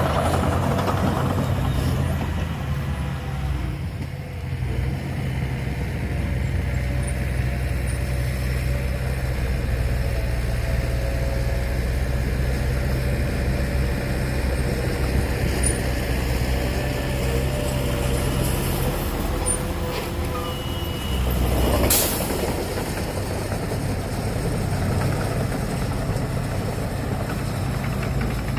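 Heavy diesel engine of earthmoving machinery running steadily under load, with one short, sharp hiss about three-quarters of the way through.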